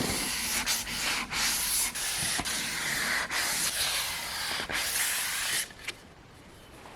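Sandpaper being worked over wood, a scratchy hiss in strokes broken by brief gaps, stopping a little under six seconds in.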